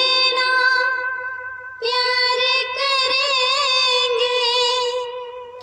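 A woman singing a Hindi film-style song, holding two long sustained notes with vibrato, the second starting about two seconds in.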